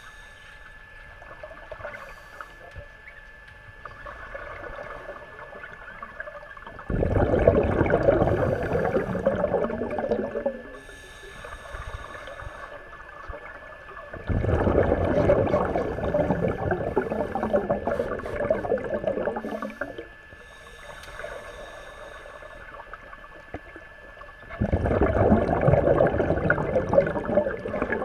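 Scuba divers breathing through regulators underwater: three long bursts of exhaled bubbles bubbling out, each several seconds long, with quieter gaps between breaths. A faint steady tone runs underneath.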